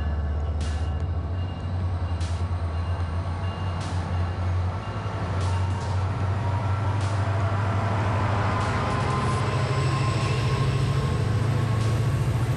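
SunRail bilevel commuter train pulling out of the station and accelerating away: the locomotive's low engine drone rises steadily in pitch under the rumble of the coaches rolling past. Sharp clicks come about every second and a half in the first half.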